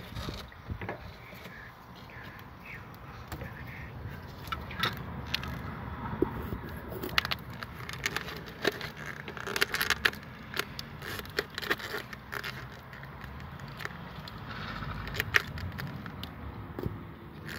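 Handling noise in an engine bay: a hand and the camera brushing and scraping against rubber coolant hoses, with many irregular clicks and small rattles as fingers reach down for the coolant temperature sensor's connector. A low, even rumble runs underneath.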